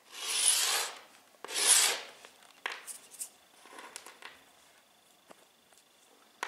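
Two scraping strokes of a lump of dried wall filler drawn across a bare subfloor to write letters, the first about a second long and the second shorter, followed by a few faint ticks.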